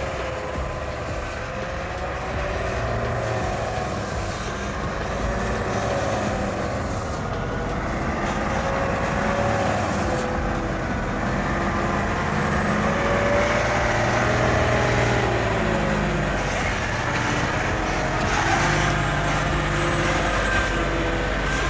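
Ashok Leyland tipper truck's diesel engine working as the truck moves over a rough haul road, its pitch rising and falling and growing louder as it comes close.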